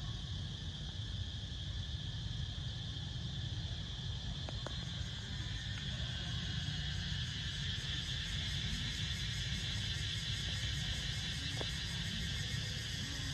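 Steady high-pitched drone of an insect chorus in the forest, over a low steady rumble, with a couple of faint clicks.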